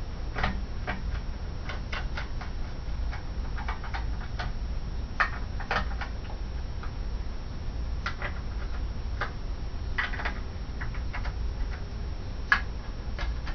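Hand screwdriver working the screws of a power board in an LCD monitor's sheet-metal chassis: irregular small metallic clicks and ticks, over a steady low hum.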